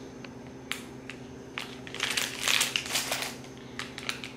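Plastic snack wrapper crinkling as it is handled, in irregular bursts that are busiest from about two to three and a half seconds in.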